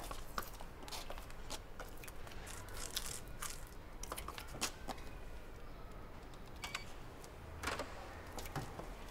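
Scattered footsteps and sharp clicks and taps on a pavement as an old wooden street door is handled and pushed open. A louder cluster of knocks comes near the end.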